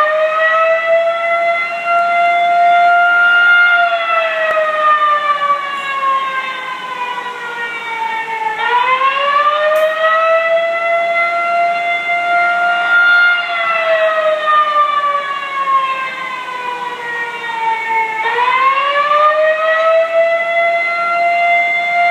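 Outdoor warning siren sounding a wail as an alarm-system test. The pitch rises over about two seconds, holds, then glides slowly down for about five seconds before climbing again, repeating roughly every nine and a half seconds.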